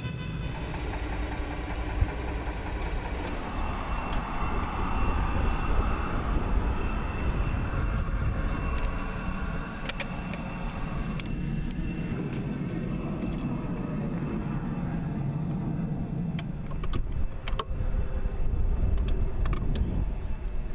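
An engine running steadily with a low rumble, with scattered short clicks and rattles.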